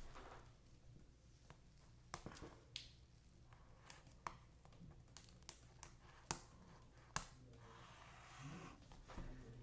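Faint, scattered clicks and taps of the laptop's box and packaging being handled, the sharpest about six and seven seconds in.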